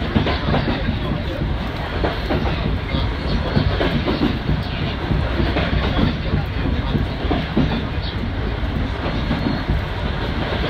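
JNR Class D51 steam locomotive D51 200, a 2-8-2, hauling its train, heard from the open deck just behind its tender: a steady mix of running noise, wheels clattering over the rails, and wind.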